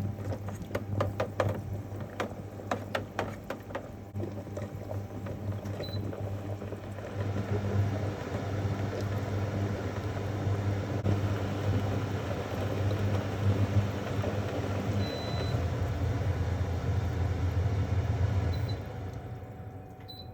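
Portable gas stove burning steadily under a pot of water and baking soda, with a low hum; a few sharp ticks come early, then a denser hiss builds about a third of the way in and dies away near the end.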